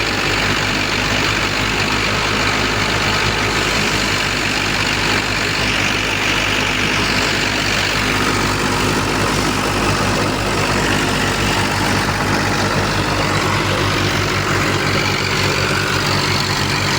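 Wheat harvesting machinery running steadily under a heavy engine: a constant low engine hum with a fast, even pulse and a broad rushing noise over it.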